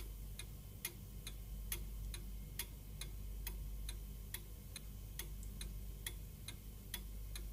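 A clock ticking steadily, a little over two ticks a second, the ticks alternating louder and softer, over a faint low hum.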